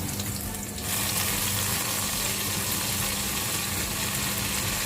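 Ginger frying in hot oil in a pan, with fish sauce being added: a steady sizzle that turns louder and hissier about a second in.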